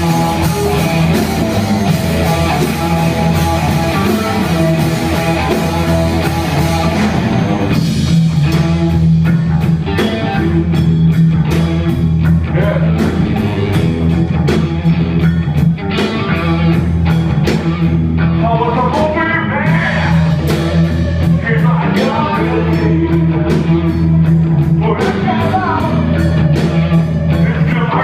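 Live rock band playing loudly: distorted electric guitars, bass guitar and a drum kit, with the drums keeping a steady beat. A lead vocal comes in about two-thirds of the way through.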